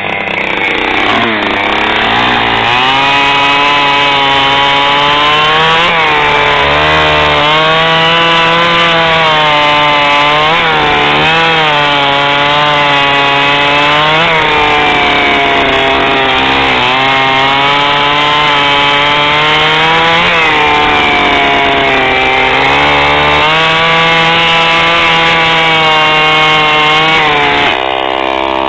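Stihl 009L two-stroke chainsaw running at full throttle and cutting wood. Its pitch sags each time the chain bites in and climbs back again, over and over. Near the end it drops suddenly to idle.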